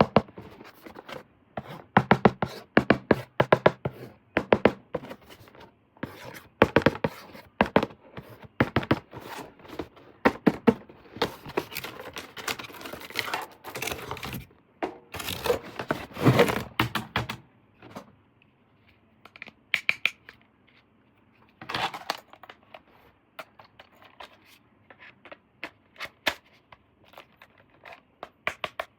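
Toy packaging being handled and opened: irregular scraping, tearing and crinkling of cardboard and plastic, with sharp clicks and knocks. The handling is busy at first and thins out to scattered clicks for the last third.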